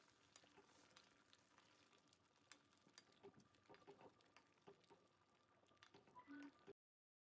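Faint stirring of a chicken and potato curry in a metal pan: a cooking spoon gives soft irregular clicks and scrapes against the pan over a low sizzling hiss. The sound cuts out suddenly near the end.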